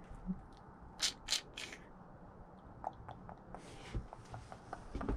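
Three quick scraping strokes about a second in, then scattered light clicks and knocks, as of hand tools and timber being handled.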